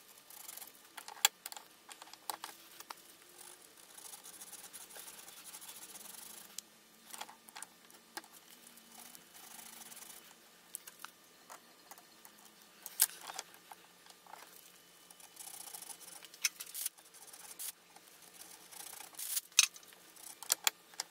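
Fine sandpaper rubbing on the copper commutator of an angle grinder's armature, taking the graphite deposit off the segments, with scattered sharp clicks and knocks from handling the armature and a louder cluster of clicks near the end.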